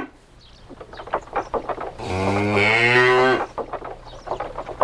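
A cow mooing once, a long low moo about two seconds in that lasts over a second, followed by faint rapid knocking.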